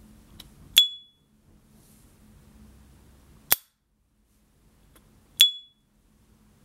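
S. T. Dupont Ligne Gatsby gas lighter's lid flicked open with a sharp click and a short, high ringing 'ping', then snapped shut with a dry click, then flicked open again with a second ping.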